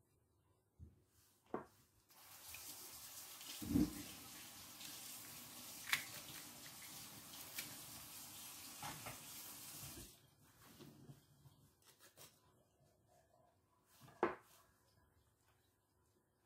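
Hand garlic press crushing garlic cloves, with a few sharp clicks and one dull thump about four seconds in. A steady hiss starts about two seconds in and stops about ten seconds in.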